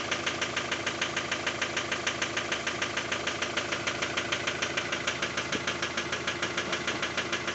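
Ford Transit 2.0 engine idling with a rapid, even metallic knock. The owner does not know its cause.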